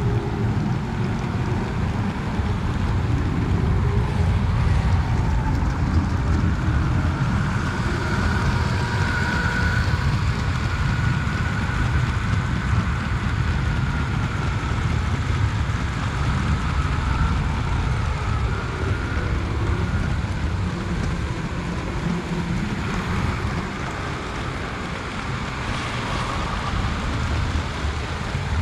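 LEGO 9V train running on 9V metal-rail track: a steady low rumble and rattle of the wheels and motor, with a faint whine that comes and goes in the middle.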